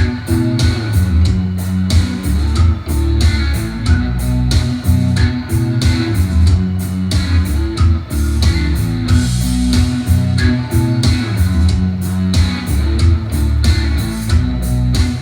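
Rock music with guitars, bass guitar and a steady drum beat, played back through Edifier R1280 bookshelf speakers driven by an FX Audio Tube 03 tube preamp in an audio sound test.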